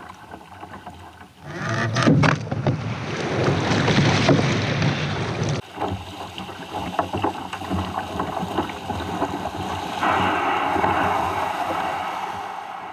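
Surf breaking and washing up a sand beach around a kayak as it is landed through the shore break, with wind on the microphone. The wash swells loud about two seconds in and again near the end.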